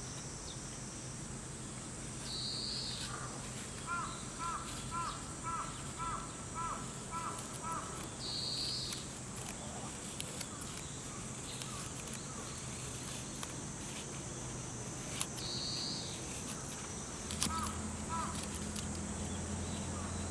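Outdoor morning ambience: insects chirring steadily, with birds calling. One bird gives a run of about eight short repeated notes, about two a second, and shorter higher calls come three times. Scattered small crackles come from the campfire.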